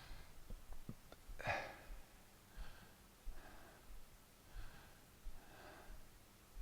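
A person breathing hard after kettlebell hang snatch thrusters, a heavy breath about once a second, with a stronger one about a second and a half in. A few faint clicks come in the first second or so.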